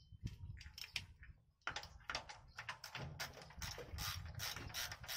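Hand tools clicking and clattering on metal while the truck's transmission bolts are started and tightened. A dense run of rapid clicks sets in about two seconds in.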